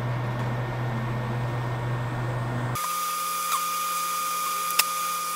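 Steady electric fan hum from a bench fume extractor. About three seconds in, the sound changes abruptly to a thinner, steady high whine, with a single click near the end.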